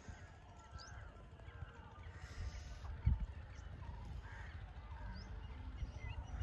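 Birds chirping and calling over a low rumble of wind on the microphone, with a single dull thump about three seconds in.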